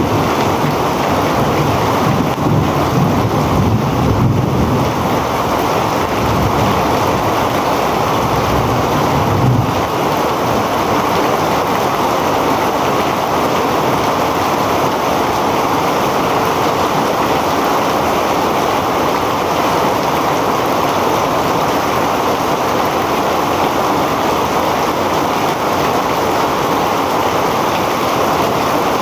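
Heavy rain falling, a steady dense hiss with no breaks, and a low rumble underneath through the first ten seconds or so.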